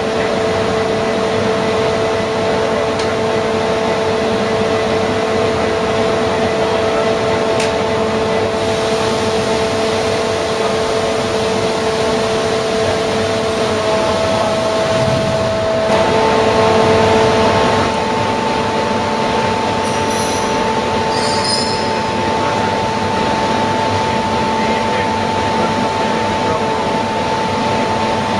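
Webster & Bennett Titan CNC vertical borer running: a steady mechanical drone with whining tones as its five-way powered turret indexes. The whine changes pitch about halfway through, and a few faint high squeaks come a little later.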